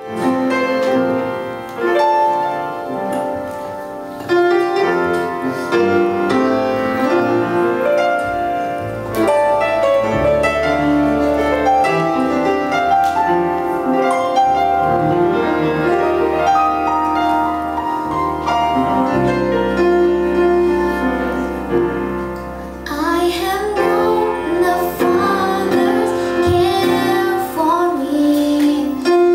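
Youth choir of children and adults singing, accompanied by a live band with electric and acoustic guitars. Low bass notes come in about ten seconds in, and the voices grow more prominent from about 23 seconds in.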